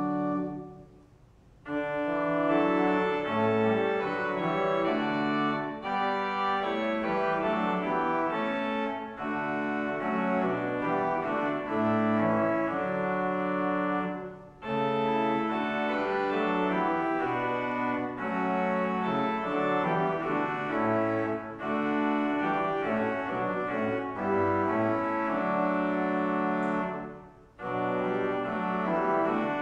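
Church organ playing a slow prelude in held chords, with short breaks between phrases about a second in, about halfway through and near the end.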